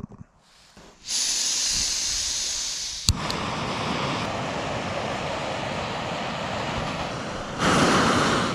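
Butane-propane gas hissing steadily from the burner of an MSR canister backpacking stove as the valve is opened, with a single sharp click about three seconds in; the hiss grows louder near the end.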